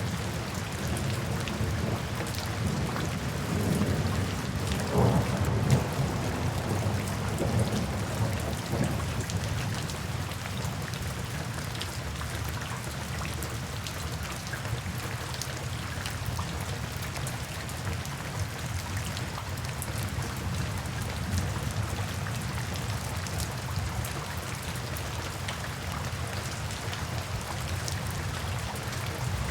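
Steady rain falling, with a low rumble underneath that swells about five seconds in and then settles.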